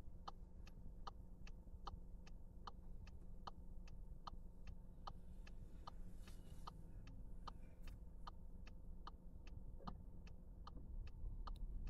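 Car's turn-signal indicator ticking steadily at about two and a half clicks a second while the car waits in traffic, signalling for the turn, over a faint steady hum from the idling car.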